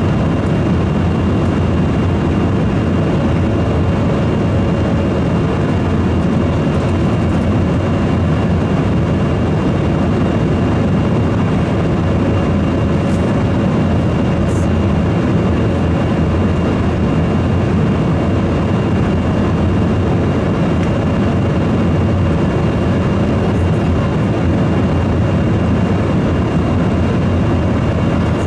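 Steady in-flight cabin noise of an Embraer 175, heard inside the cabin by the wing: the drone of its GE CF34 turbofan engines and rushing air, with a thin steady whine over it.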